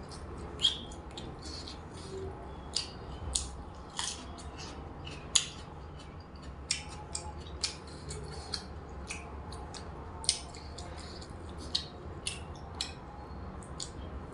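A person eating close to the microphone: irregular crisp crunches and wet mouth clicks from chewing, some louder than others, roughly one or two a second.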